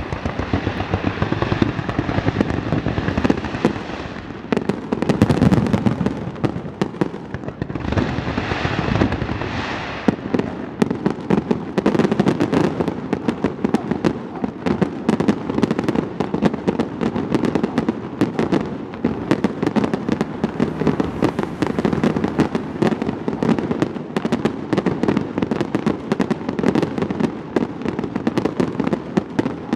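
Fireworks display: shells bursting in quick succession with crackling. A couple of heavier booms come in the first ten seconds, then the bangs run together into a dense, rapid barrage.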